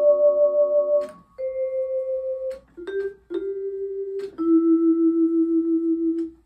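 1960s Deagan Vibraharp (vibraphone) played with yarn mallets: a held chord, then a short string of single ringing notes, each pulsing about four times a second with the motor-driven tremolo. The last note is cut off suddenly by the damper near the end.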